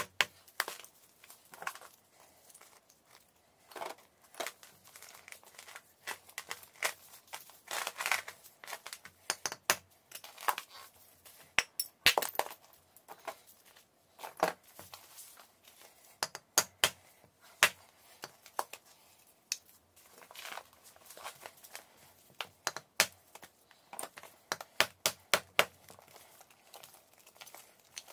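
Pieces of a large lump of natural chalk being snapped and broken off by hand, with irregular sharp cracks and dry crunching as the chalk splits and crumbles.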